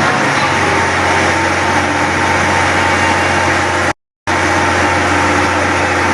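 An engine running steadily under loud, dense noise, with a steady low hum. The sound cuts to silence for a moment about four seconds in, then carries on.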